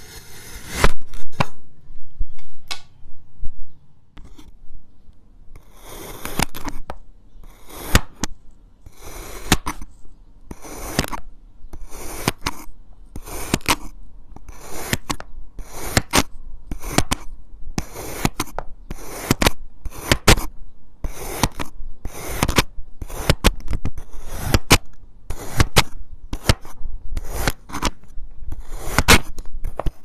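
Kinetic sand being cut. First come a few knife strokes through a layered block of sand, then a short lull. From about six seconds in, a thin blade slices through sand cylinders in a steady run of crisp scraping cuts, about three every two seconds.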